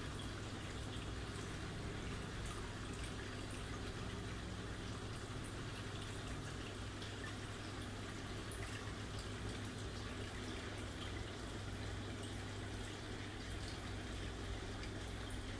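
Steady background noise: an even hiss over a low hum, with faint trickling water and a few light ticks.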